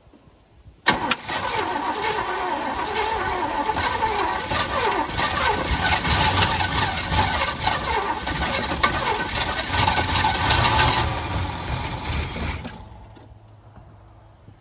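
A 1985 Chevy C10 pickup's engine is started about a second in and runs loudly and unevenly for about twelve seconds, its pitch rising and falling, then drops away suddenly near the end. It is running on a newly installed HEI distributor with the ignition timing not yet set right, on old, mouse-chewed plug wires and old plugs, so it does not run cleanly.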